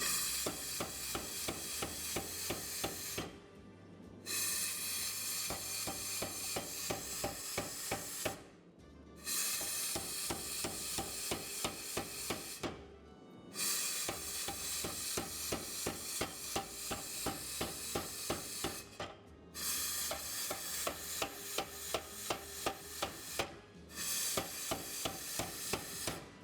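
Rapid hammer blows on hot steel on an anvil, forging down the edges of a knife's bolster to keep the heel from pinching concave. The blows come in quick runs of several strikes a second, broken by short pauses about every four seconds.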